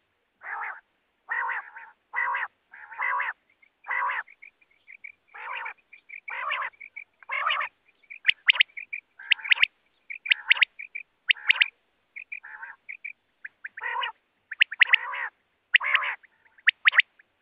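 Common quail (batair) calling over and over: short nasal notes, a little under one a second, mixed with sharp, high two- and three-note calls that come more often from about halfway on.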